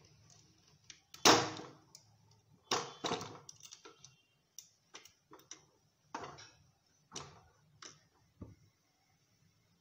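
Cookware clanks and clicks as a cooking pot is covered with its lid: one louder clank with a short ring about a second in, then a string of lighter, irregular knocks.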